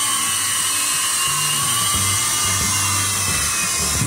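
Small electric motors of a toy remote-control helicopter whining steadily at a high pitch as its rotors spin, the pitch wavering slightly.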